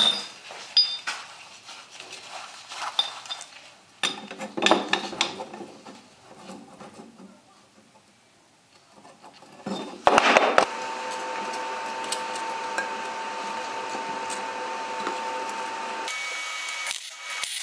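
Steel plates and tube clanking and scraping as they are handled and set on a wooden workbench. About ten seconds in, a loud burst gives way to a machine running with a steady hum that changes about sixteen seconds in.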